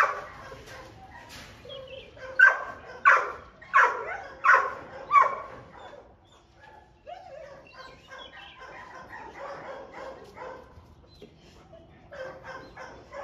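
Large dog barking: one loud bark at the start, then five barks in a steady series, about one every 0.7 seconds, from about two and a half to five and a half seconds in.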